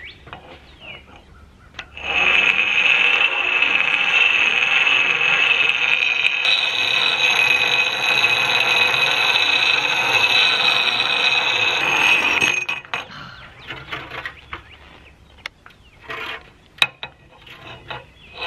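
An axe blade being ground on the stone wheel of a hand-cranked 1920s Keystone Iron City grinder, putting a rough new surface on the edge. The steady grinding starts about two seconds in and stops after about ten seconds, followed by quieter scattered clicks and knocks.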